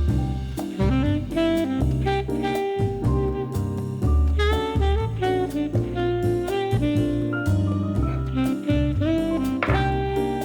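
Jazz background music: a saxophone melody over a drum kit and bass with a steady beat.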